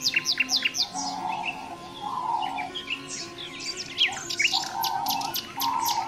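Several songbirds chirping and calling together. A quick run of short, high, downward-sweeping chirps comes in the first second and more follow near the end, while a rougher, lower call comes back about four times.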